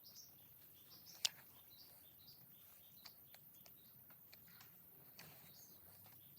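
Faint ambience of small birds chirping now and then, with one sharp click a little over a second in.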